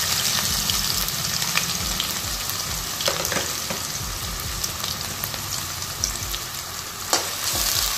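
Freshly added chopped onions sizzling in hot oil in a kadai: a steady frying hiss with scattered crackles that eases gradually, with a few sharper crackles near the end.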